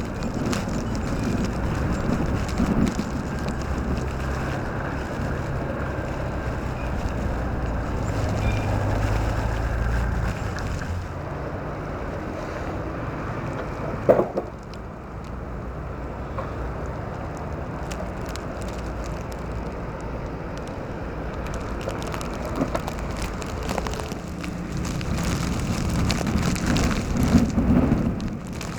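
Blizzard ambience: wind blowing on the microphone over the hum of vehicle traffic on snowy roads. A single sharp knock about halfway through.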